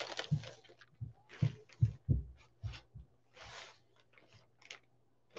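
Clear plastic poly bag crinkling and rustling in short bursts as a folded jersey is pulled out of it, with several soft thuds from the handling.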